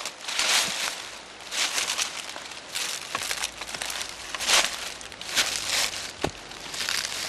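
Leafy undergrowth rustling and swishing in irregular bursts as someone pushes through it on foot, dry leaves and stalks crackling underfoot.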